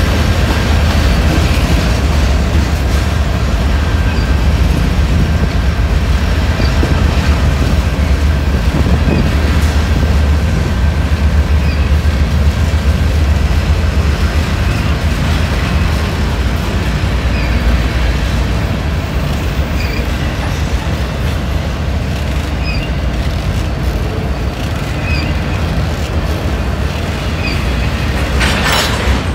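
Freight cars of a mixed manifest train rolling past close by: a steady, loud low rumble of steel wheels on the rails.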